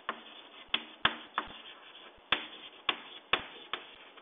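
Chalk writing on a blackboard: a string of about eight sharp, irregular taps as the chalk strikes the board with each stroke.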